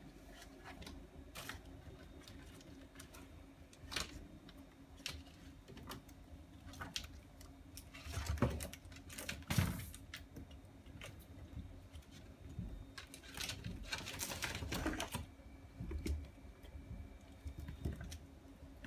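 Scattered light clicks, taps and scuffling of one-month-old kittens at play, their paws and claws on a rug and hard floor, with a few louder bursts of scrabbling.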